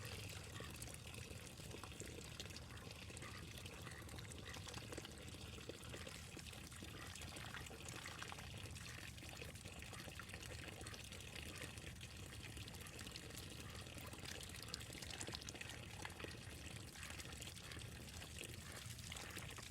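Faint, steady trickling and splashing of water in the ducks' shallow pond.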